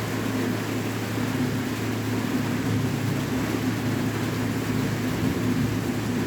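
Steady rain sound for sleep: a constant, even hiss with a low steady hum underneath.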